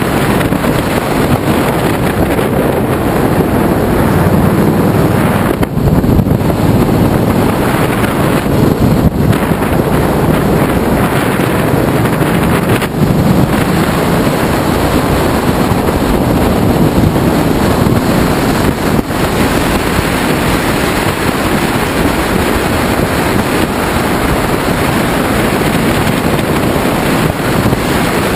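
Loud, steady wind rushing over the microphone of a camera mounted on a moving Ducati Multistrada motorcycle, with the bike's engine running beneath it.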